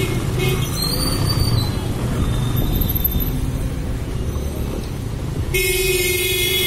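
Steady rumble of a motorcycle ride through busy street traffic, with a long, high-pitched held tone just after the start and again near the end.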